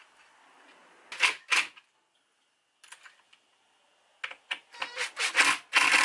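Cordless impact driver tightening a skateboard truck's mounting bolts, while a spanner holds the nuts. There are two short runs about a second in, then a longer rattling run of rapid hammering from about four seconds in.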